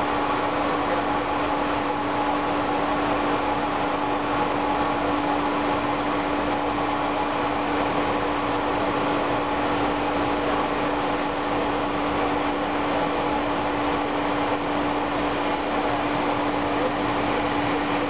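Steady in-flight cockpit noise of a Learjet 60 business jet: even rushing of air and its turbofan engines, with a steady low tone running under it.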